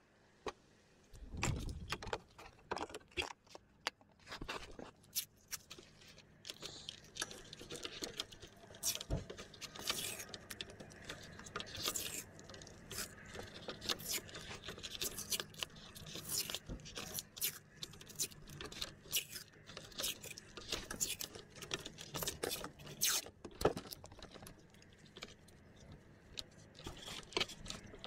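Black cloth wiring-harness tape being pulled off its roll and wound around a car's wiring loom: irregular crackling, tearing and scraping as the tape unrolls and the cable bundle is handled.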